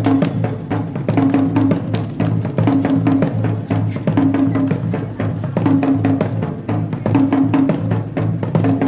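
Drum-led dance music: fast, dense drum strokes in a steady beat, with a short low pitched figure that comes back about every second and a half.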